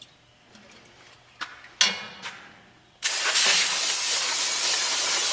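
A few light metal clinks, then about three seconds in a loud, steady hiss of aerosol brake or parts cleaner being sprayed onto metal engine parts to wash off cutting debris.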